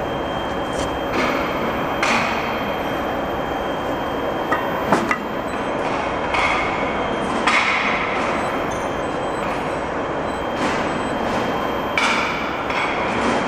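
Machinery running with a steady noise, broken by short hissing bursts every second or two and a sharp knock about five seconds in.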